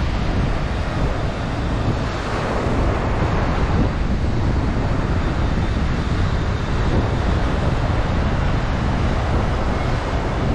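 Small waves breaking and washing up on a sandy beach, a steady wash of surf, with wind buffeting the microphone and adding a low rumble.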